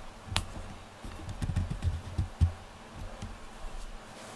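Scattered light clicks and low, dull thumps: a sharp click about half a second in, then a cluster of soft thumps and ticks, the loudest about two and a half seconds in.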